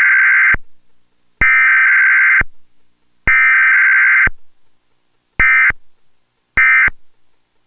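Emergency Alert System Required Weekly Test SAME data bursts: three header bursts of about a second each, about a second apart. Two short End-of-Message bursts follow near the end.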